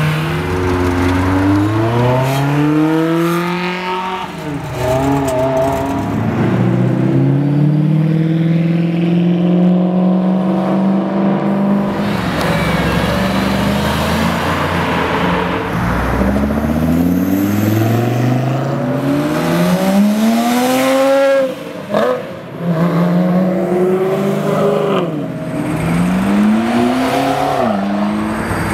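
Several sports cars accelerating hard past one after another, including a Mercedes-Benz SLR McLaren Roadster; each engine note climbs in pitch and drops back at the gear changes.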